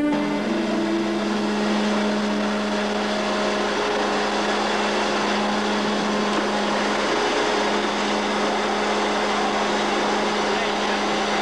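Steady mechanical drone of a ship's machinery, a constant low hum over a wash of wind and sea noise on deck.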